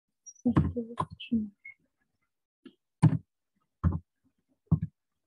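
A man's voice in short, muttered bursts with pauses between, mixed with a few computer keyboard key clicks as digits are typed.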